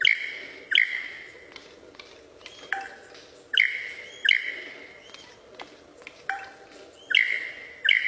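Superb lyrebird calling in display: a series of loud, sharp notes, each a quick downward sweep that rings on briefly, about eight of them at uneven intervals.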